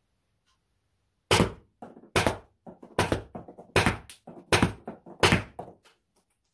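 PepperBall VKS launcher shots striking a pillow-backed cardboard box: six sharp thunks about 0.8 s apart, each followed by a few lighter knocks.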